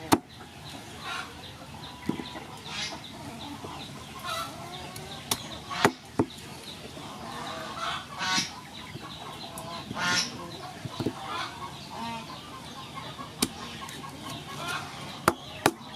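Cleaver chopping peeled sugar cane on a wooden chopping block: a handful of sharp, separate strikes, two close together near the end. Chickens cluck throughout.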